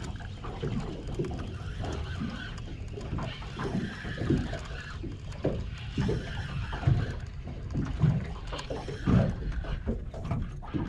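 Water slapping and lapping irregularly against the hull of a small boat.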